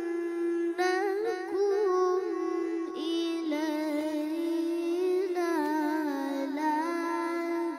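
A single voice reciting the Quran in a slow melodic chant, holding long wavering notes, with new phrases starting about a second in and again about three seconds in.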